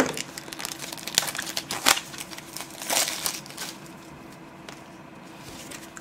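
A cardboard tarot-deck tuck box being turned and handled: scattered clicks and short crinkling rustles, busiest in the first few seconds and quieter near the end.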